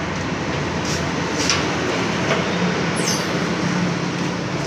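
Electric cement mortar mixer running: a steady motor hum, with a few light clicks and a short high squeak about three seconds in.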